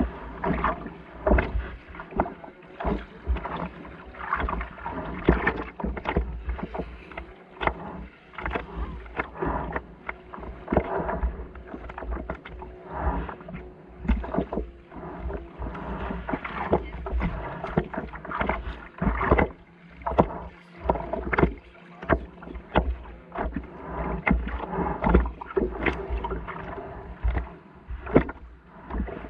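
Small river waves lapping and slapping against the hull of a stand-up paddle board in an irregular patter of splashes, over a constant low rumble.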